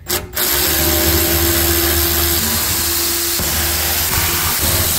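Snap-on cordless ratchet motor running steadily, spinning off a 10 mm nut from the fuel pump flange on top of the fuel tank. Its pitch shifts a few times as the load changes.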